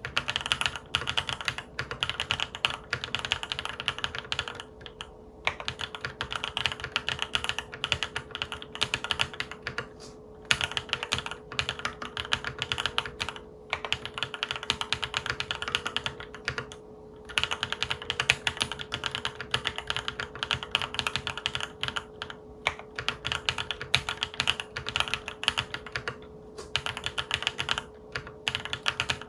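Typing on a MonsGeek M3 full-aluminium tenkeyless mechanical keyboard with Akko Cream Yellow Pro linear switches and Akko Black Pink keycaps: a fast, continuous run of keystrokes with a few brief pauses. A faint steady hum sits underneath.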